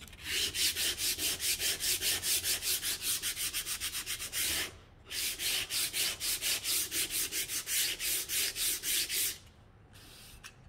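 Hand-sanding a pine board with sandpaper wrapped around a small wooden block: quick back-and-forth rubbing strokes, about four a second, with a short pause near the middle. The strokes stop about a second before the end.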